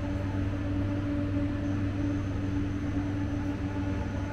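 Steady electrical machine hum of vending machines running: a low drone with a steady higher tone over it and no change.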